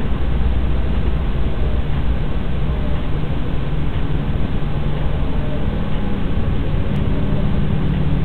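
Steady hiss with a low hum from a security camera's boosted microphone in an empty room. The deep hum fades after about two seconds, and a slightly higher hum comes in around the middle and grows toward the end.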